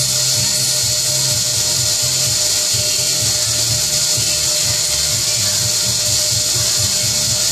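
Sherline machine spindle running steadily as the cutter works an aluminium part, a continuous high hiss with a thin whine. Music plays over it.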